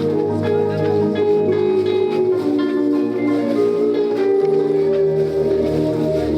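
Slow instrumental church music of sustained chords, with the bass note changing about four and a half seconds in.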